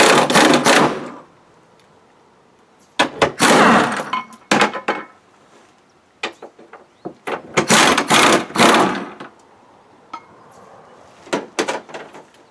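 Air-powered wrench run in about five short bursts of a second or so each, spinning off the nuts that hold the spare wheel to its bonnet mount.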